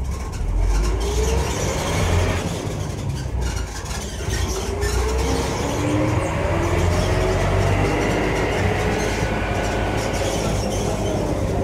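Heard from inside a city bus: the engine and drivetrain run with a steady low rumble, under a whine that rises in pitch as the bus gathers speed.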